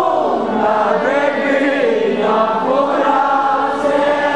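A crowd of many voices singing a hymn together, their held, gliding notes overlapping in unison.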